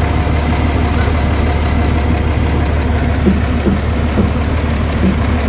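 Diesel engine of a stopped intercity bus idling steadily, a constant low hum.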